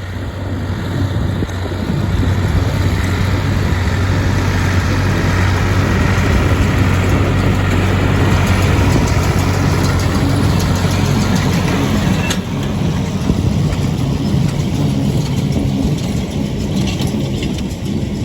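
Classic Ford farm tractor's diesel engine running under load. It grows louder over the first couple of seconds, then runs steadily.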